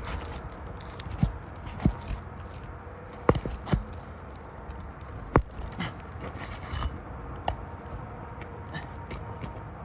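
A tool worked under a roof shingle to pry out a roofing nail: scraping, with about half a dozen sharp metallic clicks and taps spread through it.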